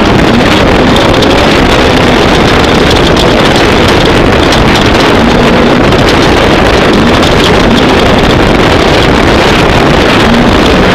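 Off-road race vehicle's engine running hard at speed, very loud and steady, its pitch rising and falling a little, with wind noise on the microphone.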